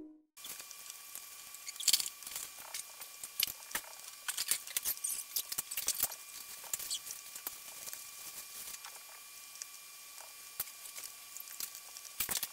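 Cardboard jigsaw puzzle pieces being handled and sorted on a tabletop: irregular small clicks and taps, with a quick cluster near the end. A faint steady high tone runs underneath.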